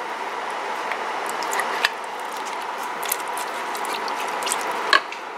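Pot of pork humba braising, with a steady hiss and many small scattered pops and ticks. A wooden spoon stirs through the pot and knocks sharply against it once, about five seconds in.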